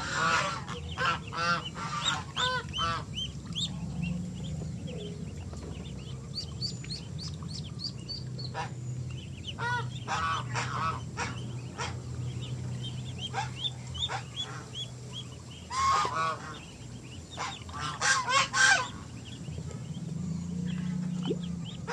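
Domestic goose honking in repeated bursts of calls, with a loud cluster of honks near the end. A steady low hum runs underneath.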